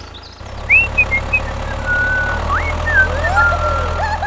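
Steady low engine drone of a tractor, with a string of high chirping, whistle-like glides and held tones over it.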